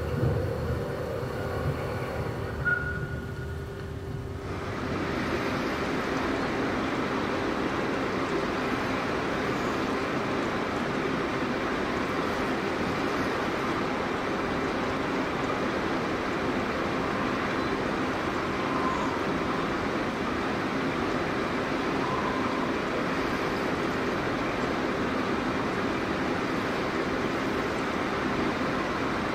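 Steady rushing-water sound of a stream, played as the exhibition's nature soundscape; it swells in about four seconds in, after a quieter stretch with faint steady tones and a couple of short high sounds.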